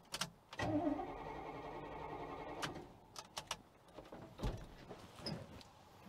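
The 1975 Chevrolet C20's starter motor cranks the engine for about two seconds after a click; the engine does not fire. The starter works on a freshly connected battery. A few scattered clicks and knocks follow.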